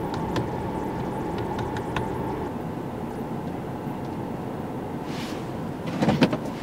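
Steady noise inside the cabin of a Ford SUV standing in a queue, with the engine and ventilation fan running. Light clicks come through in the first couple of seconds, and a brief louder noise comes near the end.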